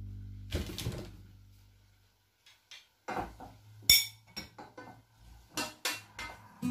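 Wooden spoon stirring in a stainless steel saucepan, knocking and scraping against the pot in irregular clinks, with one sharp clank about four seconds in.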